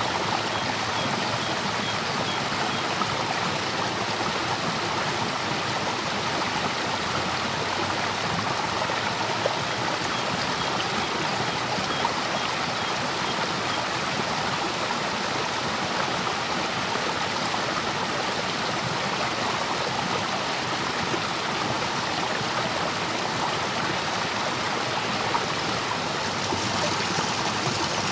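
Waterfall in flood: a steady, even rush of churning white water.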